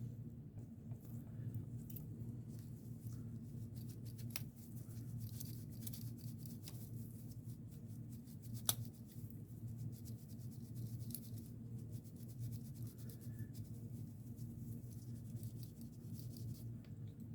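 Scattered small clicks and scrapes of computer parts being handled during disassembly, over a steady low hum, with one sharper click about nine seconds in.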